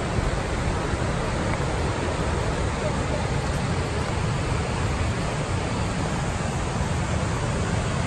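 Steady rush of a river's rapids and a waterfall pouring over a rock ledge, an even roar of water with no breaks.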